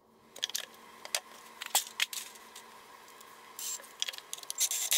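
Irregular light clicks, taps and knocks of a spirit level and small plywood blocks being handled and set on a plywood toe-kick frame, with a brief rustle near the end.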